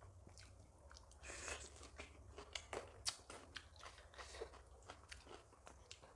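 Close-up eating sounds of a meal of maize dhido and mutton curry: chewing with wet smacks and small clicks, a short breathy rush about a second in and a sharper click about three seconds in.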